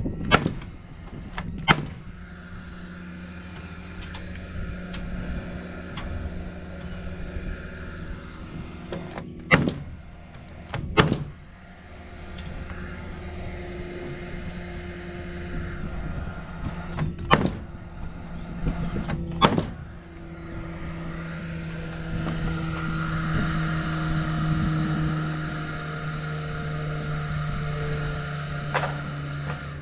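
Sharp wooden knocks of framing work, coming in pairs a second or two apart, three times, over a steady low hum that grows louder in the last third.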